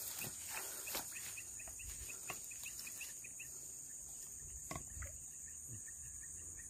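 Night insect chorus: a faint, steady high-pitched trill, with a run of short chirps repeating about three times a second over the first three seconds and a few faint clicks.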